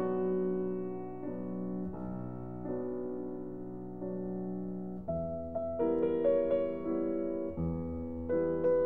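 Slow, soft piano music: held chords changing about every second and a half, growing louder with more notes struck from about five seconds in.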